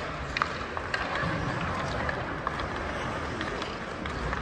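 Ice hockey play on an indoor rink: skate blades scraping the ice over a steady arena background noise, with a few sharp clacks of sticks hitting the puck and the ice.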